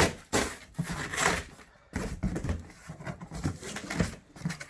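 Paperwork and cardboard packaging being handled and pulled out of a subwoofer box: irregular rustling and crinkling with light knocks, starting with a sharp tap.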